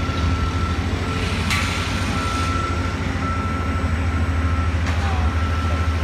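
Heavy diesel construction machinery running at idle close by, a steady low rumble, with a thin high tone that comes and goes over it. A sharp clank sounds about a second and a half in and another about five seconds in.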